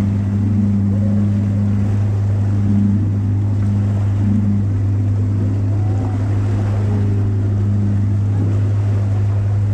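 Tour launch's engine running steadily under way, a constant low hum with water noise over it.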